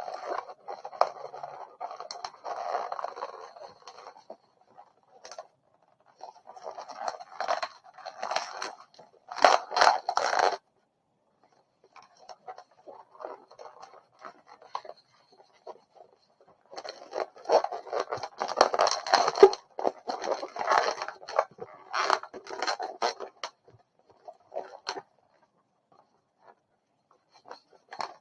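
Long pink latex modelling balloons twisted and squeezed by hand, squeaking and rubbing in bouts. The bouts are loudest around ten seconds in and again from about seventeen to twenty-three seconds, with quieter stretches between.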